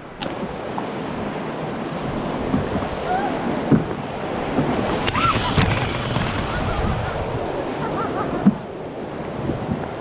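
Whitewater rushing and splashing along a canoe's hull as it runs a rapid, with wind buffeting the microphone. Two sharp knocks stand out, a little before the middle and near the end.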